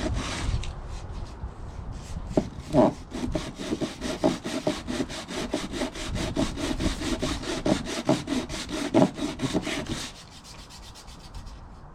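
Wood being sanded by hand, rapid back-and-forth rubbing strokes several times a second to smooth off sharp edges, stopping about ten seconds in.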